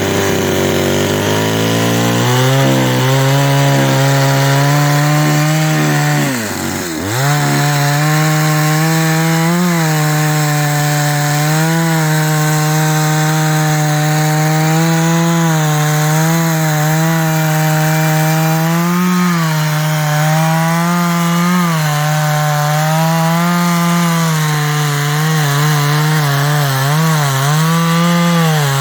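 New West 588 two-stroke chainsaw revving up and cutting through a thick old teak trunk. Its pitch dips sharply about seven seconds in and comes back, then holds steady under load with small wavers.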